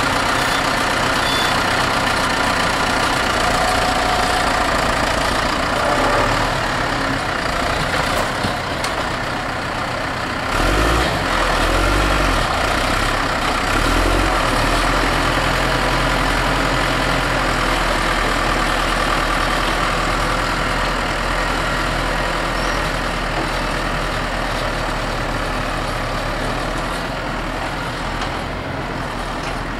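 Tractor diesel engine working on a silage pit: a steady loud drone, with a heavier low rumble and a few surges about halfway through, easing slightly near the end as the tractor moves off.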